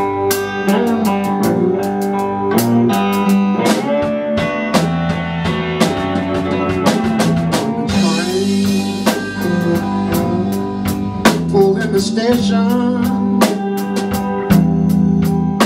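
Live band playing a song: a drum kit keeping a steady beat under guitar, with a man singing.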